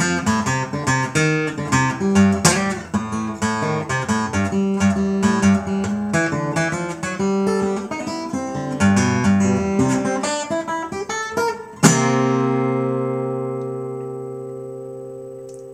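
Jumbo acoustic guitar fingerpicked in ragtime blues style, a quick run of plucked notes over a bass line. About twelve seconds in it ends on one struck chord that rings out and slowly fades.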